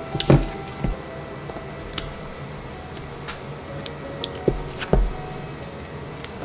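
Wooden-block rubber stamps pressed onto small paper cards and set down on a table: a few scattered light knocks and clicks, a pair close together about five seconds in.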